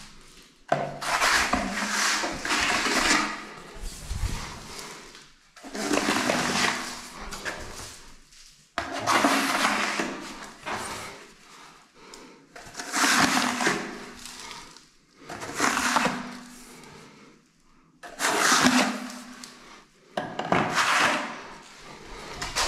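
Wide flexible steel skimming blade scraping across wet finishing compound on a wall, in repeated rough strokes of one to two seconds, about one every two and a half seconds, as the excess skim coat is drawn off.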